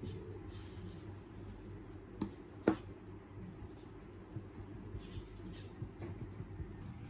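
A sheet of drawing paper rustling as it is laid down, then a pen set down on the desk: two sharp clicks about half a second apart, over a steady low hum and faint high chirps.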